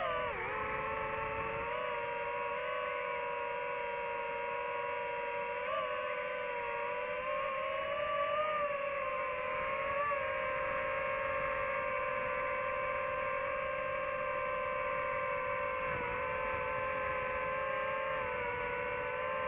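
DJI FPV drone's motors and propellers giving a steady whine in flight, the pitch rising briefly a few times in the first half as it speeds up.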